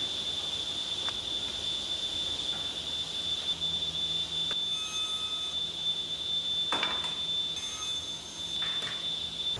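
Felder sliding-table saw running with a steady high-pitched whine, with a few short knocks of wooden strips against the saw table, the loudest about seven seconds in.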